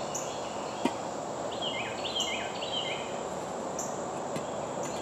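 Outdoor ambience with a steady background hiss; a bird calls three times in quick succession, short falling chirps, about two seconds in. A single light knock sounds just before the first second.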